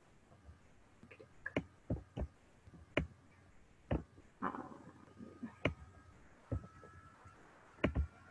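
Irregular sharp clicks of a computer mouse, about a dozen, spaced unevenly, at a low level.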